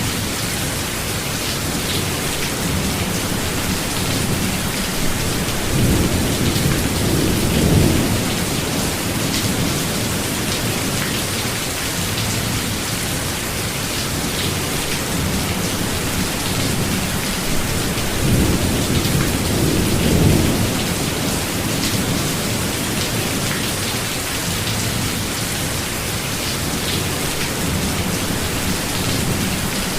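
Steady rain falling in a forest, an even hiss, with two low rolls of thunder: one about six seconds in and another about eighteen seconds in.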